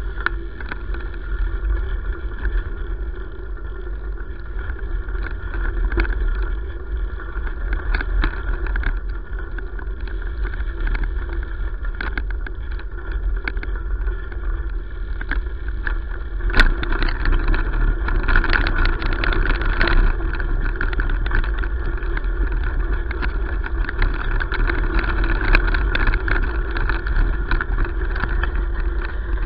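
Bicycle rolling fast along a gravel road: steady tyre noise and wind rumble on the bike-mounted microphone, with frequent small clicks and rattles. It gets louder after a sharp click about halfway through.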